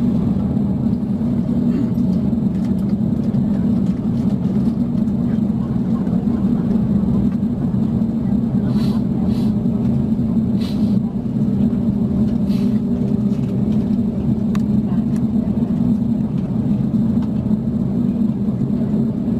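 Steady cabin drone of an Airbus A350-900 taxiing, heard from inside the cabin: its Rolls-Royce Trent XWB engines at low taxi power and the rumble of the wheels rolling on the taxiway. A few faint ticks come about halfway through.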